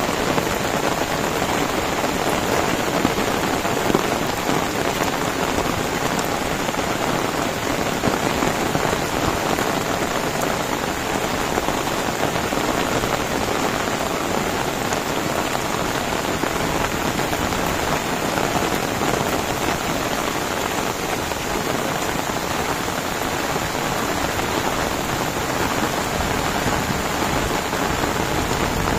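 Heavy rain falling steadily on a wet dirt road and leafy plants: a dense, even hiss of drops.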